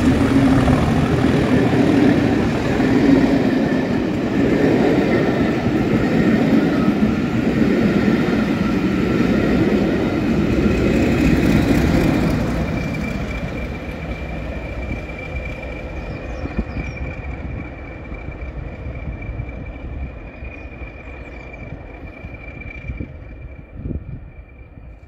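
A diesel-hauled passenger train passing at speed: the coaches rumble by on the rails, then the rear locomotive, Class 20 diesel 20189, passes about twelve seconds in. The sound then fades as the train draws away, leaving a steady high whistle.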